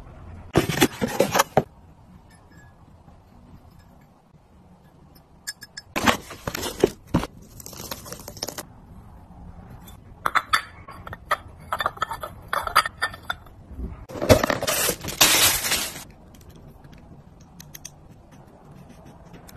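Ceramic cups and dishes being handled, clinking and scraping against each other. The sound comes in four bursts with short quiet gaps between, and the third is a run of separate clinks.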